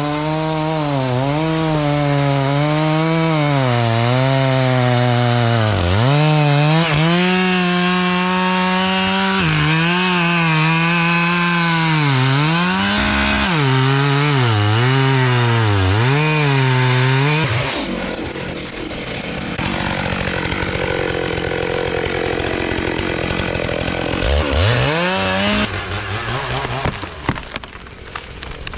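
Stihl chainsaw running at high revs through a felling cut in a big fir trunk, its pitch sagging and recovering again and again under load. About seventeen seconds in, the engine note drops away and a long rushing, crackling noise takes over, with one quick rev of the saw near the end.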